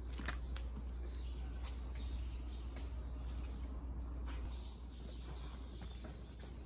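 Outdoor ambience among trees: faint bird chirps over a low steady rumble, with a few light clicks in the first couple of seconds.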